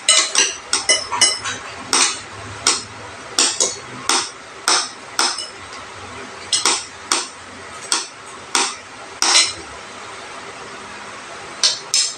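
Metal spoons and forks clinking and tapping against ceramic bowls, irregular sharp clinks about two a second, some ringing briefly. They pause for a moment near the end, then start again.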